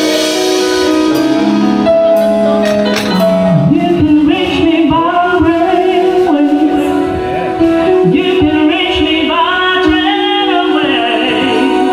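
Live music at a sound check: steady held chords, with a singer coming in a few seconds in.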